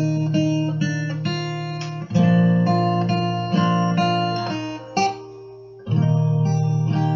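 Instrumental music led by a plucked acoustic guitar, breaking off briefly about five seconds in and then starting again.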